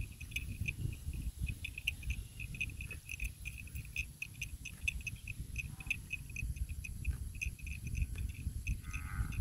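Insects chirping in a steady, rapid pulse, about three chirps a second, over a low rumble of wind on the microphone. A brief higher sound comes near the end.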